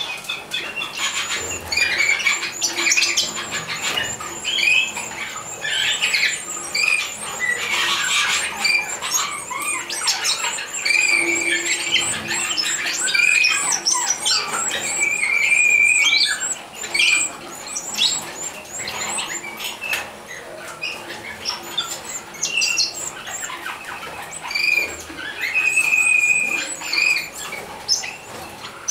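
Nestling European goldfinches begging for food with continuous rapid, high-pitched chirps and squeaks while the parent birds feed them in the nest.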